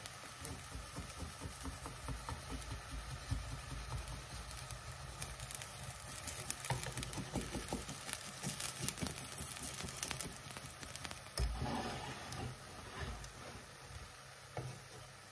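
Crepe batter sizzling and crackling in a hot frying pan, with many small pops. About two-thirds of the way through there is one louder knock.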